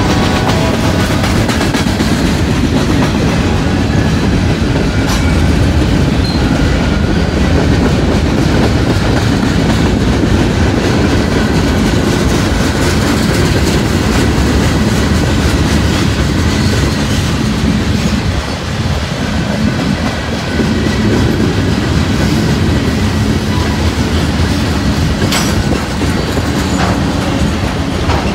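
Freight train's cars rolling past at close range: a loud, steady rumble with the wheels clacking over the rail joints.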